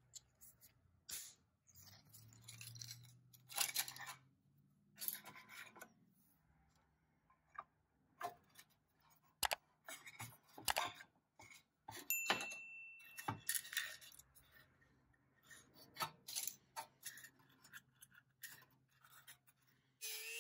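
Scattered clicks, scrapes and plastic creaks from hands taking apart a vintage Tonka toy pickup: the brittle plastic interior insert being pulled out and a screwdriver prying at the rusty steel body. Just before the end a rotary tool spins up with a rising whine.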